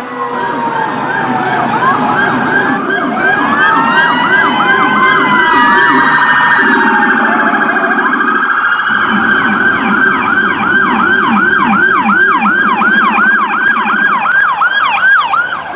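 Electronic emergency-vehicle siren sounding several tones at once: a fast yelp sweeping up and down about three times a second, slower wail glides over it, and a low buzzing tone beneath. The tone pattern switches several times.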